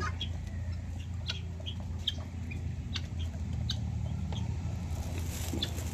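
Chickens pecking grain from a metal basin: scattered sharp pecking clicks several times a second, with soft clucking.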